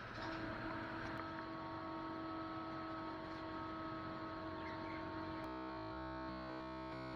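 Background music: a held synthesizer-like chord comes in over a steady hiss shortly after the start, then turns into a choppy, pulsing pattern about five and a half seconds in.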